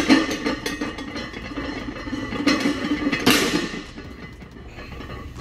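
Loaded barbell's iron plates clanking and rattling through deadlift reps, with a louder clank about three seconds in.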